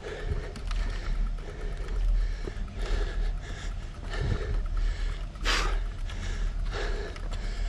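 Wind buffeting the microphone of a camera on a moving bicycle: a steady deep rumble with soft swells about once a second and one sharper gust about five and a half seconds in.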